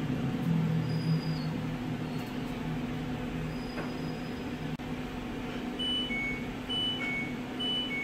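LG Inverter top-loading washing machine sounding its error alarm: short electronic beeps alternating between a higher and a lower pitch, about one a second, starting about six seconds in, as it stops the wash with the AE error code. A low steady hum runs underneath.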